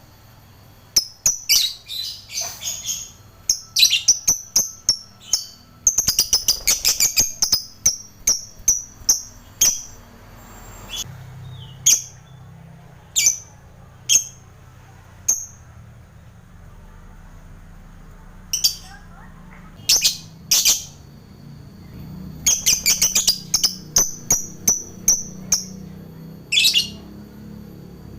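Lovebird giving shrill, high chirps, some single and spaced a second or more apart, others in quick rapid-fire runs, with short pauses between. This is the kind of lovebird song played as a lure to get a silent lovebird to answer and sing.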